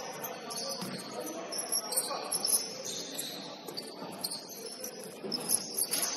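Basketball sneakers squeaking on the court during play: a run of short, high squeaks, with a few sharper knocks in between.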